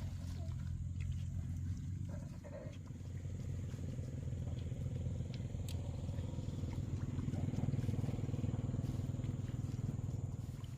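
A small engine running steadily with a low, even hum, and a few faint clicks over it.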